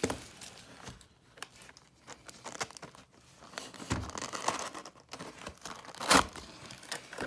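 Plastic wrapping being torn and crinkled off a sealed box of baseball card packs, in scattered crackles with one louder crackle about six seconds in.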